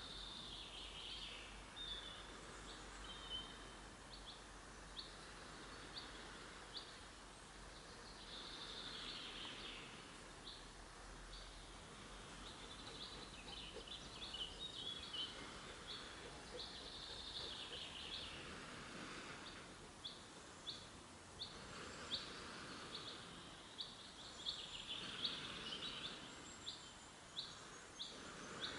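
Breath blown into a smouldering tinder bundle to bring an ember to flame: soft rushes of air lasting a second or two, every few seconds. Behind it birds sing, and in the second half one bird gives short chirps a little under twice a second.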